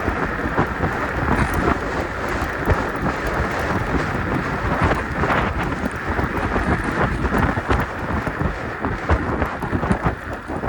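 Wind buffeting the microphone while riding the KuKirin G2 electric scooter, a steady rushing rumble broken by many small knocks and rattles.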